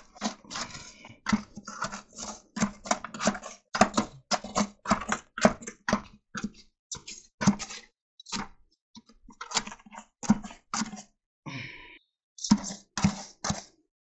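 A steel trowel scraping and slapping wet concrete in quick short strokes, about one or two a second, with a couple of brief pauses.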